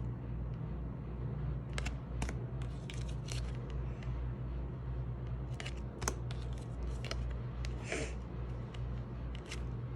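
Tarot cards being handled and flipped one at a time: scattered light clicks and snaps of card stock at irregular intervals, over a steady low hum.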